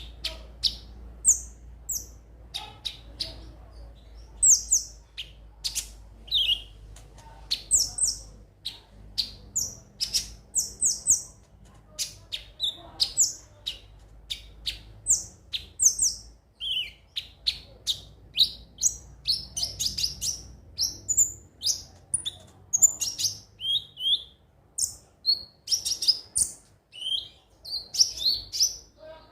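Sunbird (konin, the 'kolibri ninja') calling steadily in a rapid string of sharp, high chirps and short down-slurred notes.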